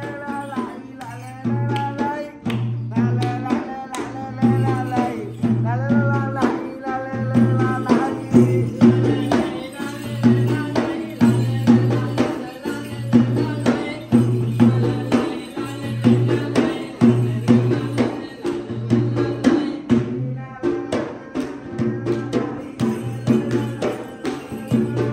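Sri Lankan traditional drumming on a double-headed hand drum, fast rhythmic strokes over music with a low note repeating about once a second and a wavering melody line that is strongest in the first third.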